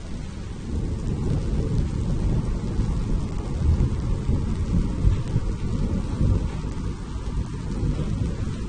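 Thunderstorm: low rolling thunder rumbling over a steady hiss of rain, swelling louder about a second in and peaking several times through the middle.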